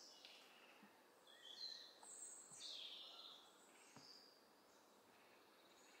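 Faint woodland birdsong: a handful of short chirps and calls. Three soft footfalls on a wooden boardwalk sound about a second and a half apart.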